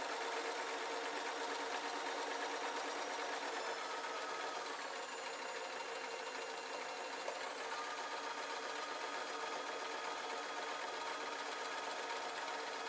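Singer domestic electric sewing machine running continuously, stitching a folded hem on jacket fabric along its overlocked edge.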